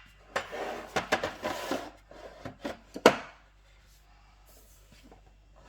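Plastic parts of a De'Longhi espresso machine being handled: a scraping rustle with clicks, then a few sharp clicks with one loud snap about three seconds in.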